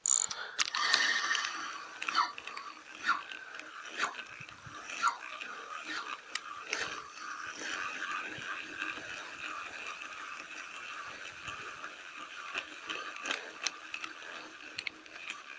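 Fishing reel being cranked to retrieve line: a continuous grinding whir of the gears, stronger in the first couple of seconds, with scattered clicks.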